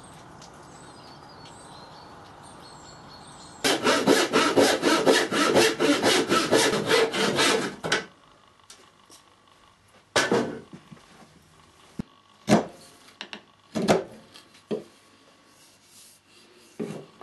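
A hand file rasped rapidly back and forth along a debarked cherry branch, about five strokes a second for some four seconds, then stopping. Afterwards come a few separate sharp knocks of wood.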